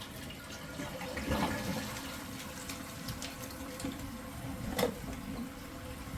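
Toilet tank refilling after a flush: water running steadily from the fill valve through the refill hose and the Kaboom Scrub Free cleaner dispenser, with a single sharp click a little under five seconds in.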